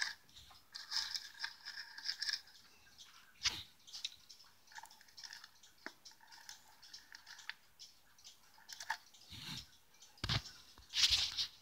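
Faint, scattered clicks and rattles of cuckoo-clock weight chain and a magnetic screwdriver against the wooden clock case as the chain is fished out through the holes in the case bottom, with a few sharper ticks.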